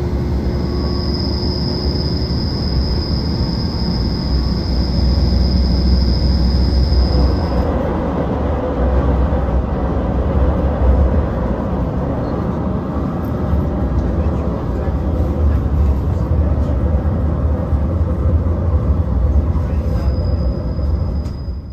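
Class 810 diesel railbus in motion, heard from on board: a steady diesel engine and wheel-on-rail rumble. A thin high whine sounds for about the first seven seconds, and after that the running noise grows heavier.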